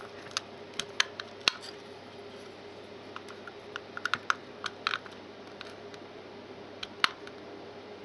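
Small sharp clicks and ticks of a small screwdriver turning a screw in the plastic terminal block of a PIR sensor, coming in irregular little clusters as the wire is clamped down.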